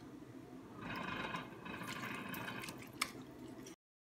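Wet squishing and dripping as a lime half is squeezed over raw chicken pieces soaking in lime water, strongest for about two seconds in the middle, with a small click near the end before the sound cuts off suddenly.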